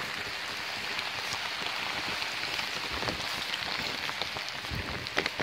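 Steady rain pattering on an umbrella held overhead, an even hiss dotted with many small drop ticks, with a few soft low thumps.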